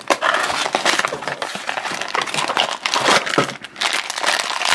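A plastic blind bag crinkling steadily in the hands as it is worked open, a dense run of crinkles.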